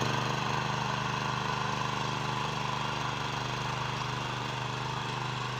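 Walk-behind power weeder (mini power tiller) engine running steadily as the machine tills dry soil.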